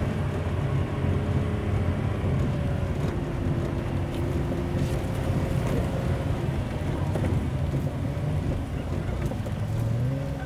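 Truck engine running steadily, its revs rising near the end.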